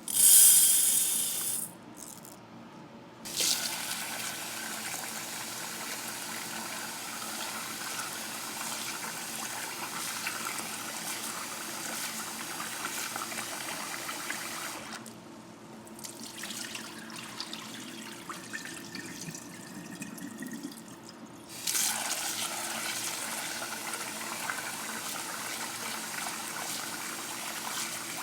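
Kitchen tap water running into a sink or pot: a short loud gush at the start, then steady running that drops away twice before picking up again near the end.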